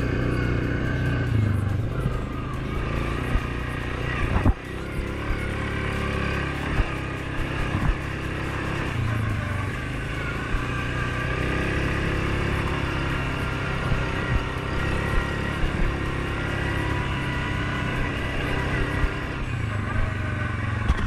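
A 2019 Suzuki KingQuad 750's single-cylinder four-stroke engine running steadily as the ATV cruises at about 20 mph on a dirt trail, with a few sharp knocks from the machine jolting over the ground, the loudest about four and a half seconds in.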